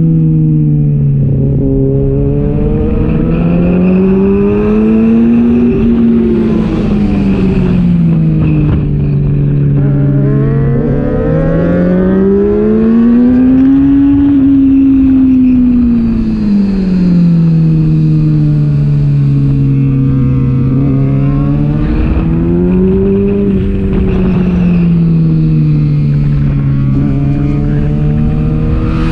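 Onboard sound of a Kawasaki ZX-6R's inline-four engine at race pace, its pitch climbing and falling in long sweeps several times as the rider accelerates and backs off, with wind rush over the bike-mounted camera.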